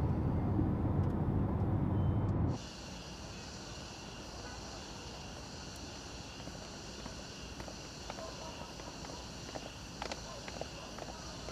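Low rumble inside a moving car's cabin, which cuts off abruptly about two and a half seconds in. It gives way to a steady high chirring of night insects, with a few light footstep clicks near the end.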